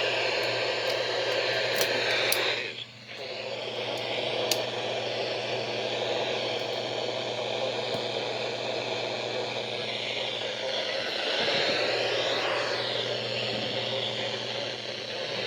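Steady radio static from a weather radio receiver, the hiss of a weak or missing signal, over a low hum. The hiss dips briefly about three seconds in.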